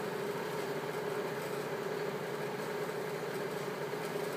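Steady mechanical hum with one constant mid-pitched tone over a soft hiss, unchanging throughout.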